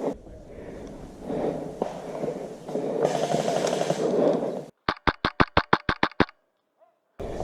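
Clothing and gear rustling as the player moves. Then a rapid string of about ten sharp shots, roughly seven a second, from an HPA-powered Wolverine MTW airsoft rifle.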